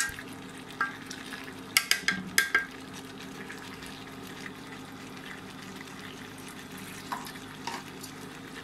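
Spatula stirring fish and squash in a wok, clinking and knocking against the pan: a few single knocks, a quick run of about five clinks around two seconds in, and two more near the end. Food frying faintly underneath, over a steady low hum.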